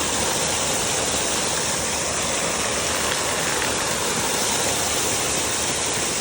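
Waterfall water falling in a steady, even rush.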